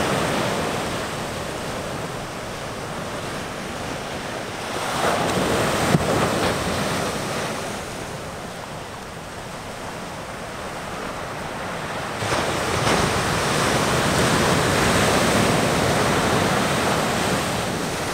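Ocean surf breaking on a beach, a steady wash that swells louder twice, about five seconds in and again for several seconds later on, with wind buffeting the microphone.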